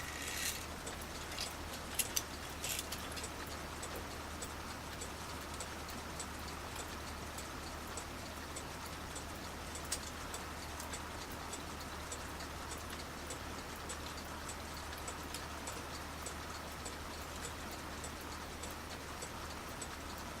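Seikosha schoolhouse clock movement ticking with a faint, even beat, being run on the bench as it is tested. A few louder clicks come in the first three seconds.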